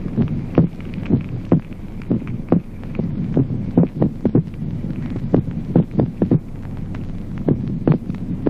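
Recorded heartbeat sounds at auscultation in an irregular rhythm of ventricular extrasystoles (premature ventricular beats), with the second heart sound doubled into two close thuds. A steady low hum runs underneath.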